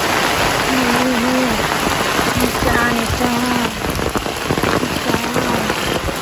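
Heavy rain falling steadily on wet ground and puddles, a dense even hiss. A few short, low, wavering calls sound through it now and then.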